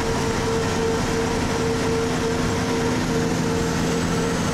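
Cab noise of a diesel tractor-trailer cruising on the interstate: steady engine drone and road noise, with a humming tone that drops out briefly now and then.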